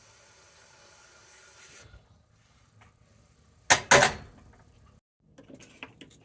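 Kitchen handling sounds: a steady hiss that cuts off about two seconds in, then two sharp knocks in quick succession, followed by a few light clicks and rattles.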